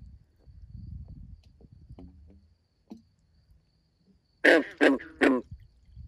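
A frog calling three short, loud croaks in quick succession from the reeds at the pond's edge, about four and a half seconds in. Before that there is low, muffled rustling of handling noise as the phone is pushed through the reeds.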